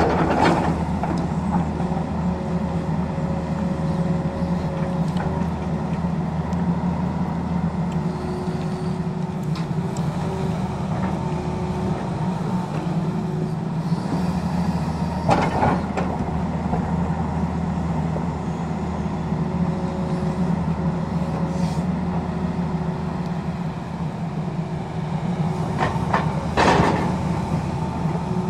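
Tata Hitachi crawler excavator's diesel engine running steadily under load while it digs, with a hydraulic whine that comes and goes and shifts in pitch as the boom and bucket move. Three sharp knocks stand out: just at the start, about halfway, and near the end.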